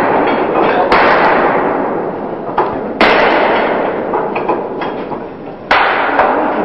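Pneumatic tool on an air hose, running in repeated bursts. Each burst starts abruptly and tails off over a second or two: three fresh bursts, about a second in, three seconds in and near the end.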